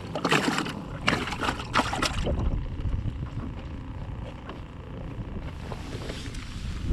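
Wind buffeting the microphone on a small fishing boat, a steady low rumble and hiss, with a quick run of handling clicks and rustles in the first two seconds.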